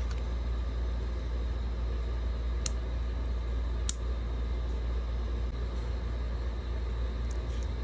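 Plastic clicks from an Insta360 X3 camera as its battery is pushed in and the battery door closed. There are two sharp clicks about two and a half and four seconds in, and two faint ones near the end, over a steady low rumble.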